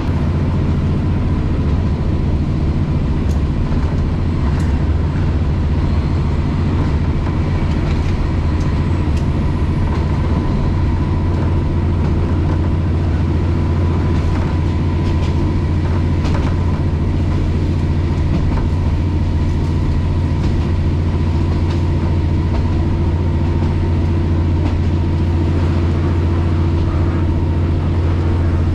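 Cabin sound of a moving KiHa 40-series diesel railcar: a loud, steady low drone of engine and running gear, with a thin steady whine and a few sharp clicks, mostly in the first half.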